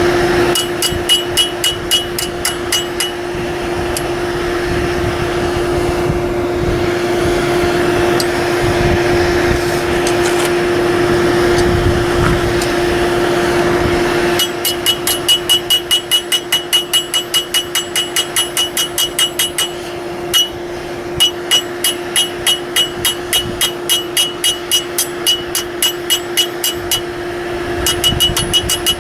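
Blacksmith's hammer striking steel on an anvil in quick, even runs of about three to four blows a second, each blow ringing. There is a short run near the start, then steady hammering from about halfway to the end, over a constant hum.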